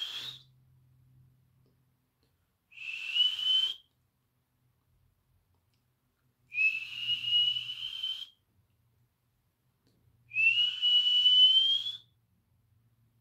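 A person whistling with the mouth: long, breathy whistled notes about every four seconds, each gliding slowly upward in pitch.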